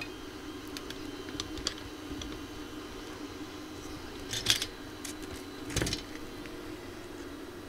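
Workbench handling noises as a circuit board is set into a small bench vise: light clicks and taps, with two brief, louder scraping sounds about four and a half and six seconds in, over a steady low hum.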